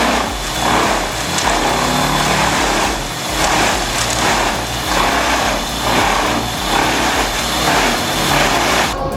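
Wood chipper running hard while chipping, a loud grinding machine noise that surges about every three-quarters of a second. It cuts off abruptly just before the end.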